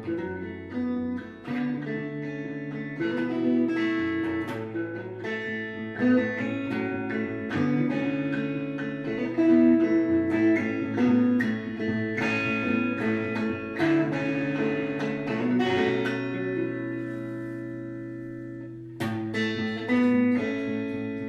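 Background music of a plucked guitar picking a slow melody, the notes ringing out. The music thins out late on and a new phrase begins.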